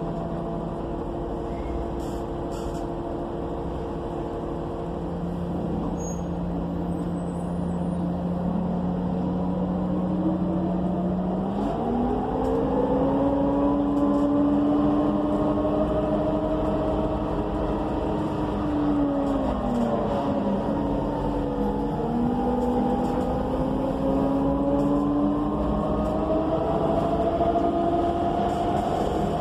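Cummins Westport ISL G natural-gas inline-six and Allison B300R automatic transmission heard from inside the bus. The pitch holds steady at first, then rises as the bus accelerates, dips about two-thirds of the way through, climbs again, and falls away sharply at the end.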